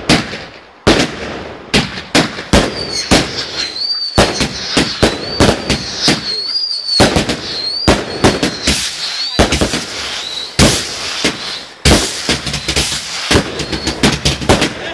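Fireworks going off in a fast, irregular string of sharp bangs and crackles from rockets and bursting shells. A high wavering whistle runs through the middle of the display.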